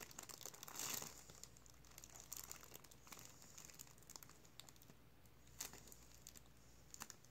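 Thin plastic zip bag crinkling faintly as a ballpoint pen pokes holes in it, a louder rustle about a second in and scattered small crackles after.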